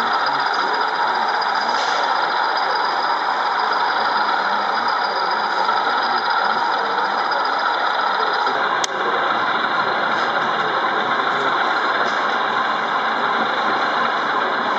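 Model diesel locomotive sound running steadily, the sound of a diesel engine ticking over, with a single sharp click about nine seconds in.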